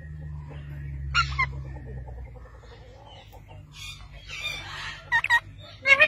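Parakeets squawking: two short, sharp calls about a second in, then a quick run of shrill, sliding calls near the end, over a low steady rumble.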